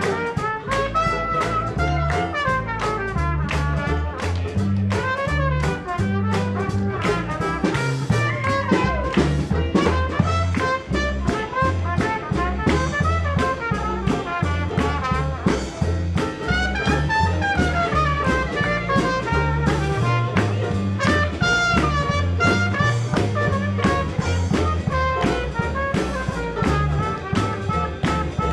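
Traditional jazz band playing at swing tempo: trumpet, trombone and clarinet over banjo, bass and drums, with a steady beat and a bass line stepping note by note.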